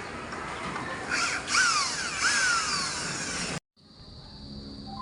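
Power tool running with its whine dropping in pitch several times, as if loaded against work, cut off abruptly about three and a half seconds in; a steady high tone follows.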